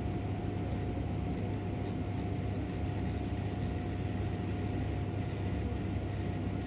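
Steady low hum with a faint constant higher tone, unchanging throughout, with no clicks or beats.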